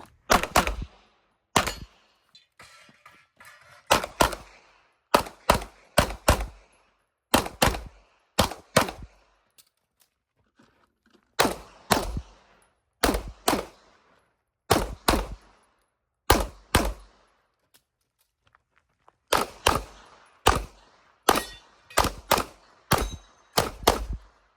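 Handgun shots fired in quick pairs, about three dozen in all, during a timed IPSC stage run. Groups of shots come between gaps of a second or more where the shooter moves or reloads, each shot with a short echoing tail.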